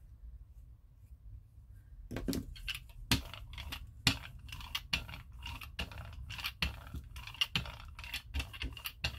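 A hand-held applicator rubbing and dabbing acrylic paint across a paper journal page, blending it in. It starts about two seconds in as a quick run of scratchy strokes and light taps, several a second.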